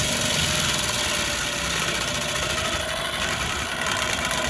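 Case TV620B compact track loader's diesel engine running under load, driving a Loftness Battle Ax forestry mulcher drum that is grinding into a tree stump. The noise is a loud, steady, dense mix of engine and grinding.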